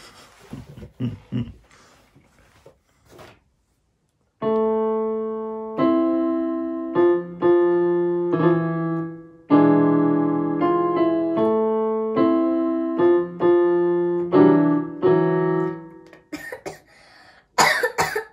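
Portable electronic keyboard played with a piano voice: a simple tune over held low notes starts about four seconds in and stops after about twelve seconds. A short cough comes near the end.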